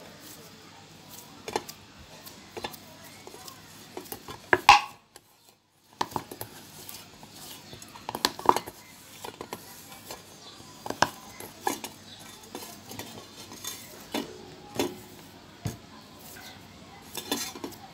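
Hands kneading homemade flour-and-glue clay dough in a stainless steel bowl: irregular knocks and scrapes of fingers and dough against the steel, the loudest just before a short silence about five seconds in.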